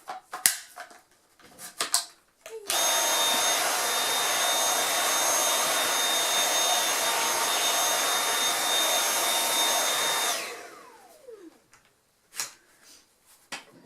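A Dyson V8 Absolute cordless stick vacuum switched on with its trigger. It runs steadily for about seven seconds with a rushing airflow and a high motor whine, then is released and winds down with a falling pitch. A few light clicks come before it starts and after it stops.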